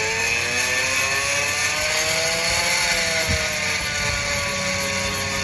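Greenworks 80V cordless brushless tiller's electric motor and tines running, a whine that climbs in pitch for about three seconds, then settles slightly lower and holds steady.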